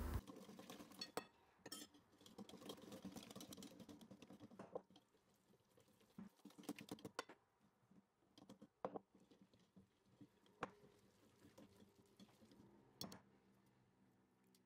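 Faint, irregular clicks and taps of a wire whisk against a glass mixing bowl, stirring flour into a yeasted batter of water, sugar, eggs and oil.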